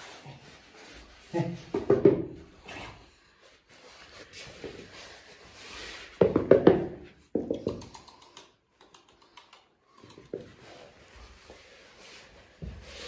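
Hands patting and thumping on an artificial-turf floor in play with a small puppy, with scuffling movement and a few short bursts of voice-like sounds.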